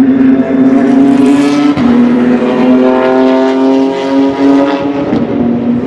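Porsche 992 GT3 Cup race car's straight-piped flat-six at high revs as the car passes through a corner: a loud, steady high note with a brief dip in pitch about two seconds in.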